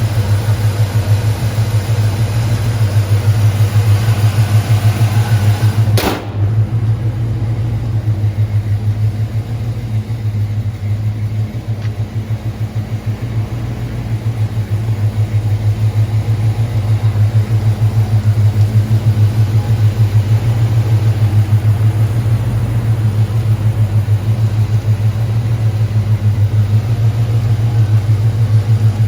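Chevrolet 350 small-block V8 with headers and dual exhaust idling steadily, its exhaust pulsing in a quick even beat. A single sharp click sounds about six seconds in.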